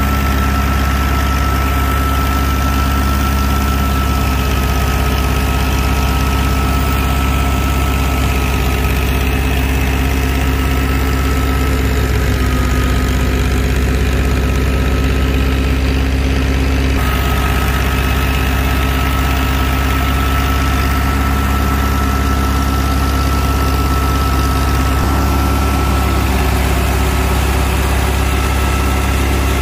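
Massey Ferguson tractor engine running steadily at speed as it drives a wheat thresher. A deep continuous hum comes with a thin steady high whine from the running machinery.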